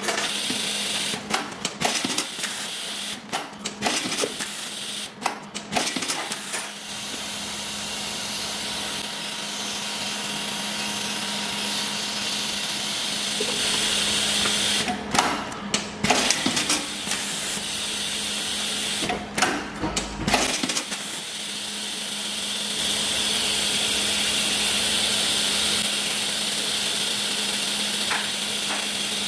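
Automatic bagging machine running with a steady hum and hiss, broken several times by clusters of sharp mechanical clicks and clunks as it handles bags. There is a low thump near the middle.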